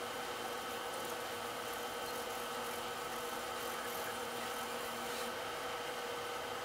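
A steady hum of several fixed tones over a hiss. Faint scratching of a felt-tip pen on paper comes through now and then.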